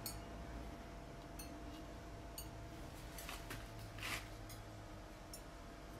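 Glazed ceramic bowls being set onto kiln shelves while the kiln is loaded for the glaze firing: a few light, sparse clicks and clinks, the loudest about four seconds in, over a faint steady hum.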